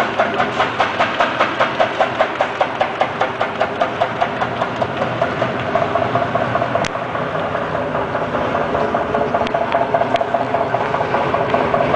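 MKS-KT99 wavy-cut potato chip slicing machine running: a steady motor hum with a rhythmic clatter about four times a second. About halfway through it settles into a smoother, steadier hum, with a couple of sharp clicks.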